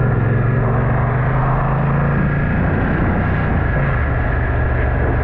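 Motorcycle engine running under acceleration, its note stepping lower about midway as it shifts up, over heavy wind rush on the camera's built-in microphone.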